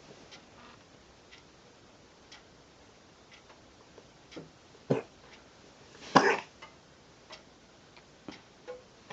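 Two coughs: a short, sharp one about five seconds in and a louder, longer one about a second later. This is the cough the uploader links to asthma. Under them a clock ticks faintly, about once a second.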